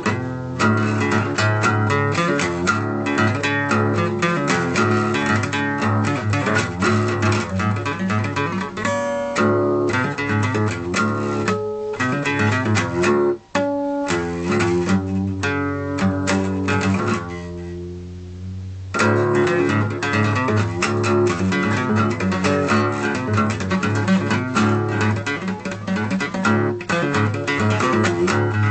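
Solo acoustic guitar playing blues: a steady flow of picked notes and chords. About halfway through there is a momentary break, and a little later a chord is left ringing for a couple of seconds before the playing picks up again.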